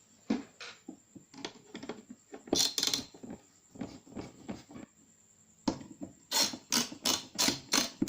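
Screwdriver tightening a CPU cooler's mounting screws onto the motherboard, worked alternately on opposite sides: a run of short clicks and scrapes of metal on metal, with a busy stretch a couple of seconds in and a faster run of about four or five clicks a second near the end.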